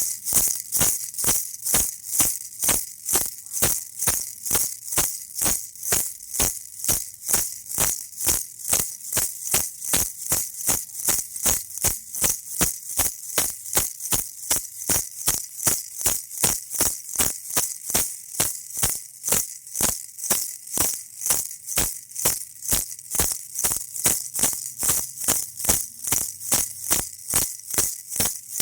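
A baby's toy rattle shaken in a steady, even rhythm of about two to three crisp, bright shakes a second.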